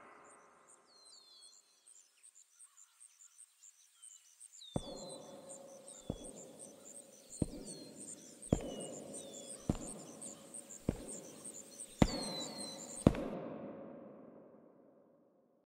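Film sound design: high chirping repeated several times a second, with falling chirps, and from about five seconds in a steady series of eight sharp hits about a second apart, each with a ringing tail. It all cuts off abruptly, leaving an echoing decay.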